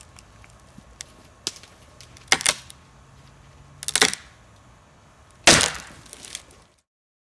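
Wooden branches snapping and cracking: a series of sharp, separate cracks, the loudest about five and a half seconds in.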